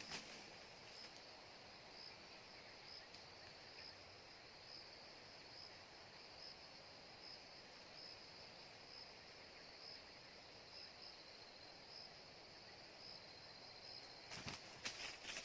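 Faint, steady high-pitched insect trill with a faint regular pulse, over a light outdoor hiss. Irregular rustling and clicks start near the end.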